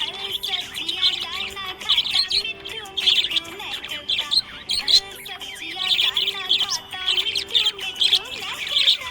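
Budgerigars chirping and warbling nonstop, a dense run of quick high chirps and short rising and falling notes.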